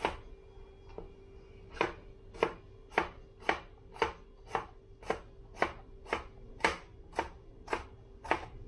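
Kitchen knife chopping a tomato on a plastic cutting board: a steady run of sharp knocks, about two cuts a second.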